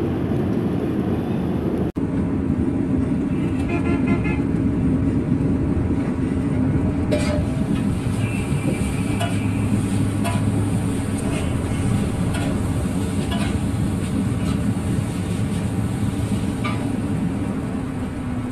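Steel spatula scraping and clanking on a large flat iron griddle as noodles are stir-fried, over a steady low rumble of street traffic with brief car horn toots.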